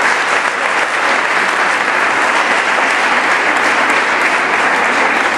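Audience applauding: many people clapping at once, steady and even.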